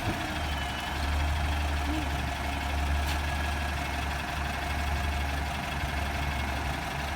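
A vehicle engine running with a steady low drone and a faint steady tone above it, and a single light click about three seconds in.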